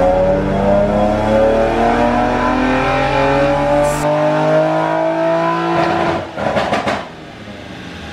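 Nissan 350Z's V6 engine making a wide-open-throttle pull on a chassis dyno, its revs climbing steadily for about six seconds. Then comes a short rough rush of noise as the throttle shuts, and the engine drops to a much quieter run.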